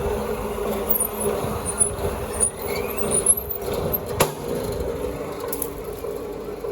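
ACSR wire stripping machine running as it strips ACSR conductor, separating the aluminium strands from the steel core: a steady mechanical hum with scattered clicks and one sharp knock about four seconds in.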